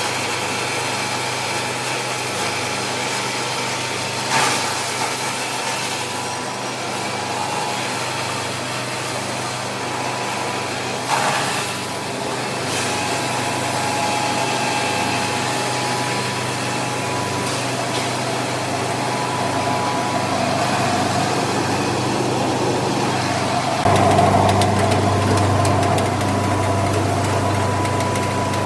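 Aluminum-plastic film separation recycling machine running: a steady drone of its motors and blower with a continuous hum. There are two short, louder bursts about 4 and 11 seconds in, and the low hum grows louder about 24 seconds in.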